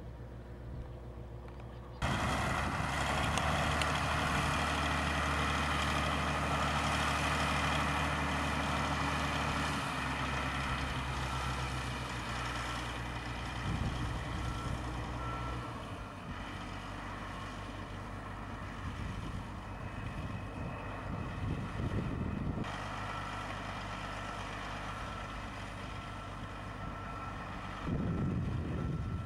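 Diesel engine of heavy tractor-type field machinery running steadily, cutting in abruptly about two seconds in and changing note a few times. A repeating high-pitched warning beep sounds through the second half.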